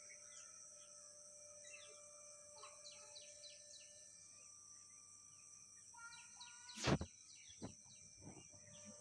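Small birds chirping, many short falling calls, over a steady high-pitched hiss; a sharp knock about seven seconds in, the loudest sound, with two softer knocks just after.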